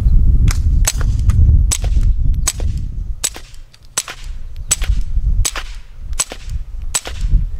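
Suppressed Smith & Wesson Model 2206 .22 LR pistol firing a steady string of about ten shots, roughly one every three-quarters of a second.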